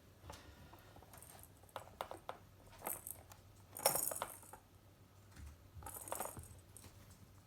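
Small jingling and rattling with light clicks and knocks, as from a pet's toy being batted about. The loudest jingle comes about four seconds in, and a smaller one about six seconds in.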